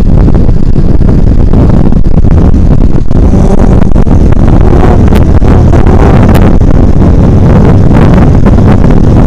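Heavy wind buffeting on the microphone of a camera on a moving motorcycle, a loud, steady low rumble, with the engine and road noise of the ride underneath.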